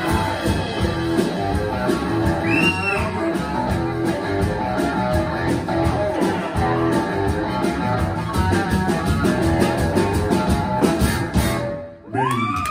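Live band playing an up-tempo rockabilly number on electric guitar, archtop acoustic guitar, upright bass and drums, with a steady shaken maraca pulse on top. The music stops abruptly near the end, and the audience starts cheering and whooping.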